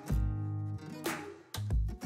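Background music with plucked, guitar-like notes, breaking off briefly near the end.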